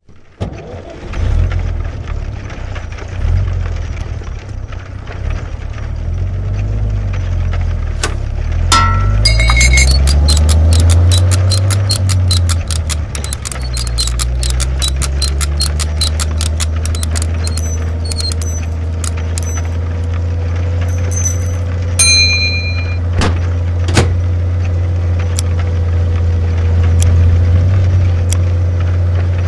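Honda car parts rolling, sliding and knocking across a wooden floor in a chain reaction: a low rumble of rolling metal that rises and falls in pitch, then a run of quick clicks and knocks through the middle, with a few bright metallic pings past the middle.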